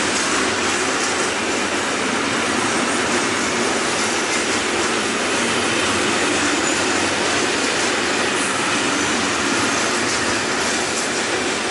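Freight train of covered hopper wagons rolling past at speed close by: a loud, steady running noise of steel wheels on the rails that goes on without a break.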